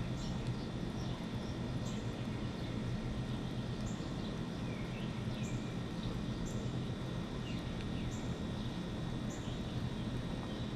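Small birds giving short, scattered chirps over a steady low rumble of outdoor background noise, with a thin, steady high whine running underneath.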